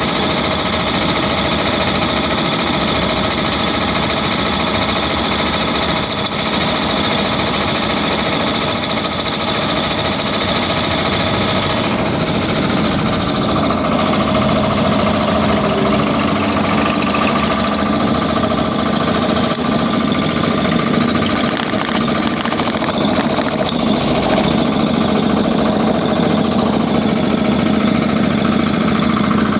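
A 3 HP Puma 3065 piston air compressor running steadily as it pumps up its tank. Its tone changes about twelve seconds in.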